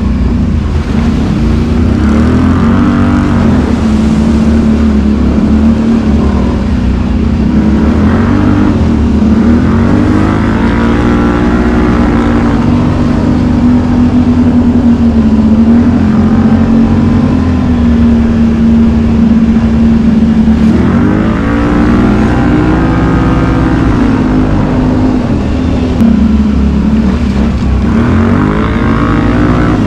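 ATV engine running while riding a trail, loud and steady, its pitch rising and falling several times as the throttle opens and closes.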